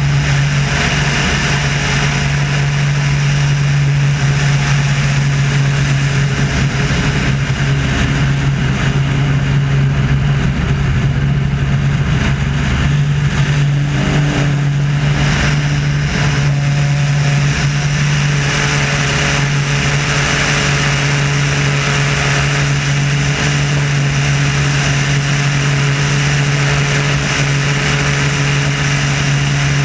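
Wolf Pitts Pro aerobatic biplane's piston engine and propeller running hard with a steady drone, heard from a camera on the wing with a dense rush of wind over the microphone. The engine note shifts slightly about halfway through.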